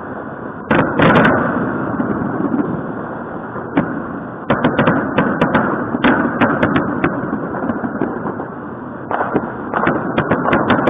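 Many fireworks going off at once: a steady rumble of distant bangs, with clusters of sharp, close cracks and crackles about a second in, again from about four to seven seconds, and near the end.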